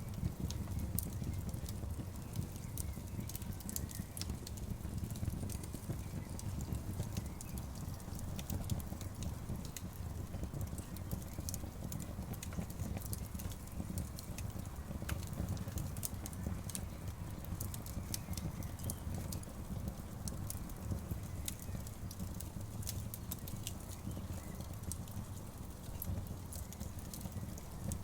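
Campfire crackling: frequent sharp pops and snaps of burning wood over a steady low rumble.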